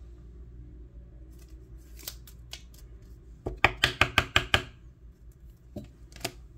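Handling of a foil trading-card pack and its cards: a fast run of about eight sharp crackling clicks, roughly seven a second, a little past halfway, with a few single clicks before and after.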